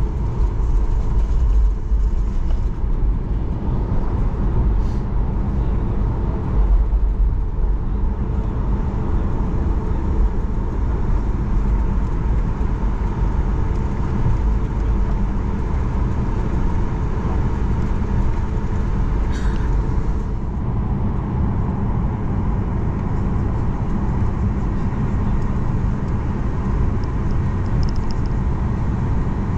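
Boeing 737 MAX 8 taxiing, heard from inside the cabin: its CFM LEAP-1B engines at idle give a steady low rumble with a faint steady whine over it.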